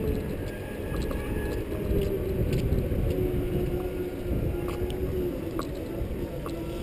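Segway personal transporter in motion: its electric drive whines with a steady tone that drops a little in pitch about three seconds in, over a low rumble of the wheels on concrete pavement. Light clicks and rattles come here and there as it rolls over bumps.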